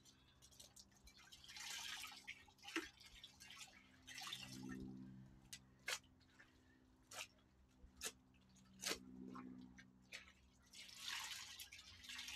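Faint handling sounds on a vinyl pool liner: scattered sharp ticks a second or more apart and a few short soft swishes as hands work along the pool floor.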